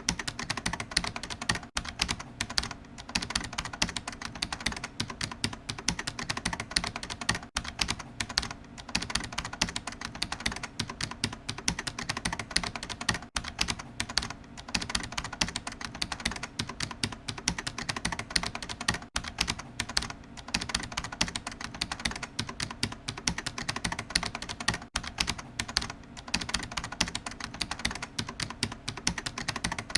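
Typing on a computer keyboard: fast, continuous keystrokes with a few brief pauses.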